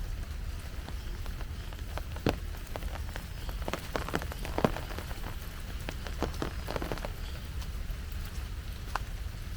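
Rain falling, with scattered sharp drip taps that bunch up into a busier run of taps in the middle, over a steady low rumble.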